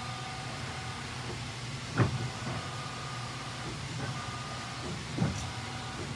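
Steady low machinery hum around an offset printing press, with a clunk about two seconds in and another near the end.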